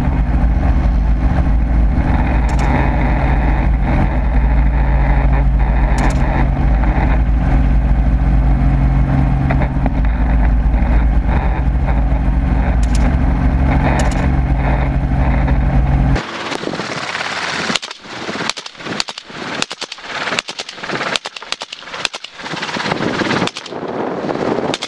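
Steady drone of a helicopter's engine and rotor, heard from on board, with a few faint clicks over it. About sixteen seconds in it cuts off abruptly and a rapid string of gunshots follows, about two a second.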